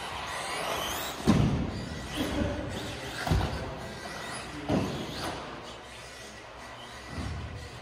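MSB1 electric radio-controlled buggy driving on an indoor carpet track, its motor whining up and down in pitch, with several thuds as it lands or hits the track; the loudest thud comes about a second in.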